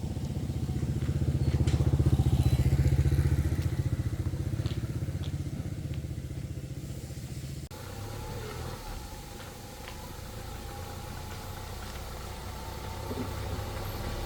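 Small engine running, loudest a couple of seconds in and easing off, with an abrupt change about eight seconds in to a steadier, quieter engine hum.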